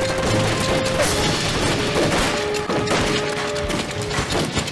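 Machine-gun fire with crashing impacts, dense and rapid, over dramatic background music.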